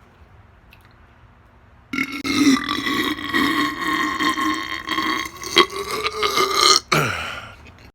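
A man's long, loud belch after chugging a bottle of carbonated diet soda. It starts about two seconds in, holds a steady pitch for about five seconds, then drops in pitch and dies away.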